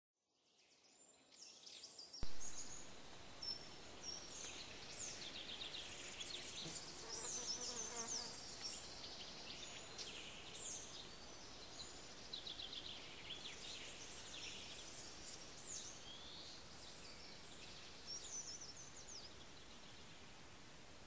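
Faint forest ambience: many small birds chirping and trilling in short, high calls over a steady hiss from the camera's microphone. It starts abruptly about two seconds in, after near silence.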